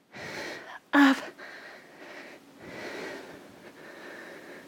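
A woman breathing hard from exertion, her breaths swelling and fading in a soft rush, with one short spoken word about a second in.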